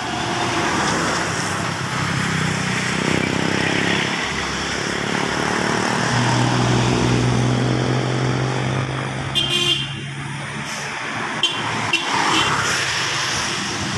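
Road traffic passing close by: a truck and then cars driving past with engines running and tyres on asphalt, and a horn toot.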